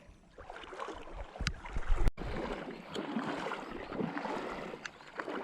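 Sea water washing and rushing along a rocky beach, with a few low thumps in the first two seconds; the sound drops out for an instant about two seconds in.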